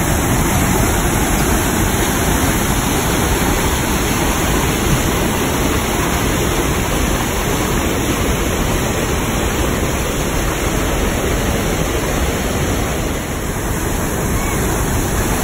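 Whitewater of the Maligne River rushing through a narrow limestone gorge: a loud, steady rush of water.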